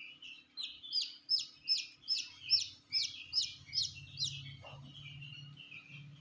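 Newly hatched chicks peeping: a run of about ten loud, high peeps, each falling in pitch, about three a second, with softer peeping around them.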